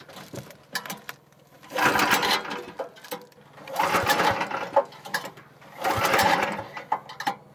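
Small petrol engine on a long-shaft boat motor being pull-started three times, about two seconds apart; each pull spins it over for under a second but it does not keep running. The engine has become hard to start, and the owner is not sure why.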